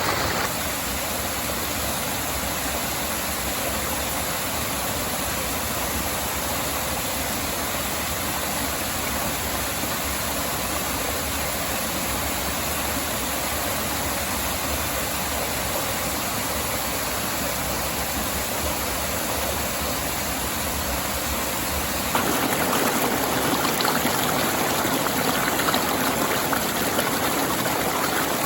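Steady rushing of a river and small waterfalls. About 22 seconds in, the sound shifts abruptly to a louder, brighter rush.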